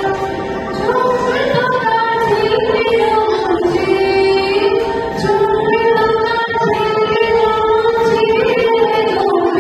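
A woman singing a Bengali song into a microphone, with a violin played along as accompaniment; the melody glides and holds long notes.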